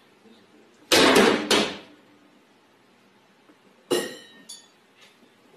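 Kitchen cabinet doors slammed hard: a quick run of about three loud bangs about a second in, then one more bang near four seconds in with a brief ringing, as of glass or crockery rattling inside.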